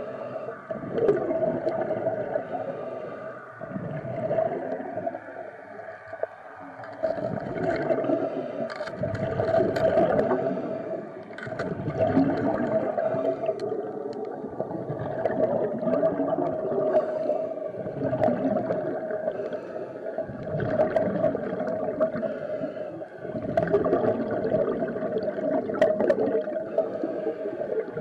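Underwater sound picked up by a diver's camera: a steady hum with water noise that swells and fades every few seconds, and scattered sharp clicks.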